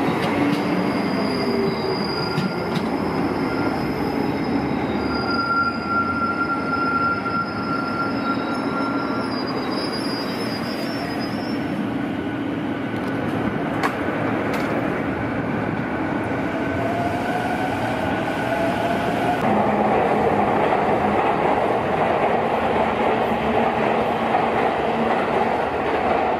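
Electric train running along station tracks: continuous wheel-and-rail noise with thin, high wheel squeal tones through the first half, and a rising whine that starts about seventeen seconds in.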